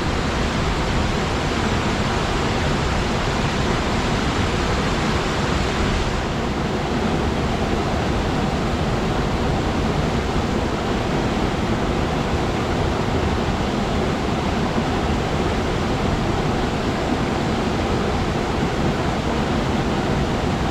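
Waterfall rushing steadily, a dense even roar of falling water; the higher hiss eases slightly about six seconds in.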